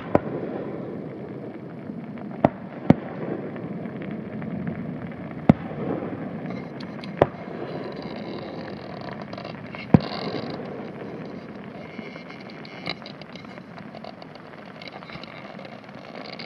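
Aerial fireworks shells bursting in the sky: about seven sharp bangs one to three seconds apart over a steady low rumble. From about six to eleven seconds in there is a crackling of glittering stars.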